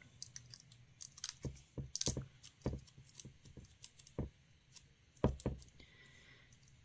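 Gloved fingers pressing crumpled fantasy film into wet resin in a silicone mould: a string of faint, irregular clicks and crackles, the sharpest pair about five seconds in.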